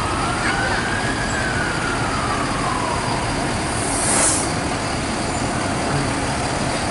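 Fire truck siren giving one slow wail that rises and then falls away over the first few seconds, over the steady noise of trucks rolling past. A short hiss sounds about four seconds in.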